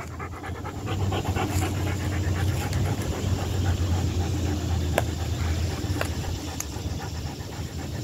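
Rottweiler panting fast and evenly, several breaths a second, with a couple of short clicks partway through.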